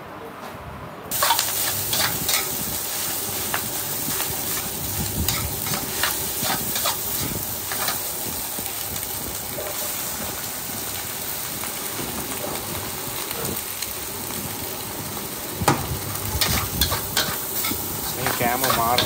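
Fried rice being stir-fried in a wok: a steady sizzle with a metal spatula scraping and clanking against the pan. It starts suddenly about a second in, and the clatter gets busier and louder near the end.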